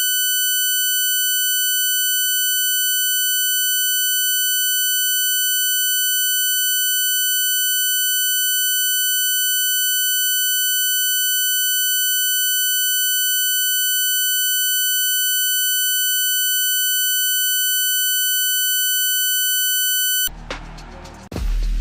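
Loud, steady, high-pitched electronic tone with a stack of overtones, unwavering on a TV channel's audio during a transmission breakdown. It cuts off suddenly about 20 seconds in, giving way to a low hum and then the start of music near the end.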